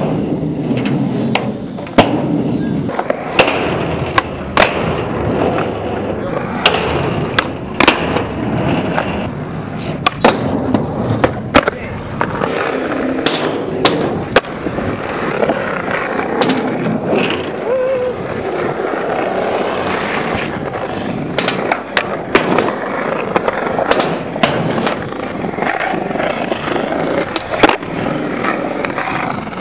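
Skateboard's urethane wheels rolling on concrete, broken by many sharp pops and clacks of the board against the ground as tricks are popped and landed, with the board scraping along a ledge during a grind.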